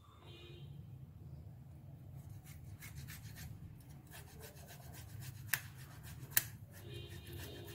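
Boiled potato being grated on a stainless steel hand grater over a steel bowl: a run of quick, soft rasping strokes, with two sharp clicks in the second half.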